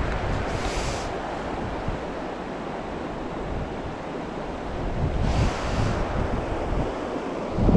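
Shallow river water running over stones, a steady rushing hiss, with wind buffeting the microphone in irregular low gusts. Twice, about half a second in and about five seconds in, a brief louder rush of hiss rises over it.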